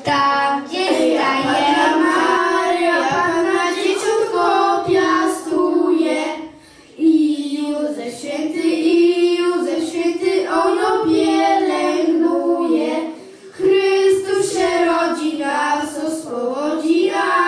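A small group of children singing a Polish Christmas carol together into microphones, one melody line with short breaks between phrases about six and a half and thirteen and a half seconds in.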